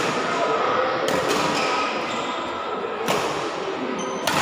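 Badminton rally: a racket strikes the shuttlecock with sharp cracks, about five in the space of four seconds, starting with the serve.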